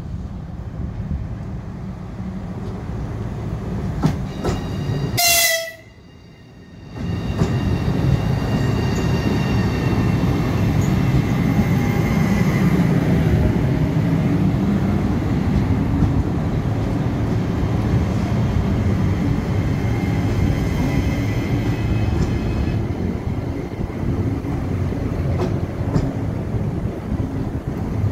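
ES1P Lastochka electric multiple unit arriving. There is a short horn blast about five seconds in. Then the train runs slowly past close by with a steady wheel rumble and a faint whine from its traction equipment.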